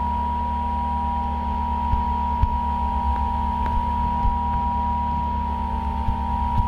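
Electronic drone: two close, steady high tones held over a steady low hum, with a few faint taps.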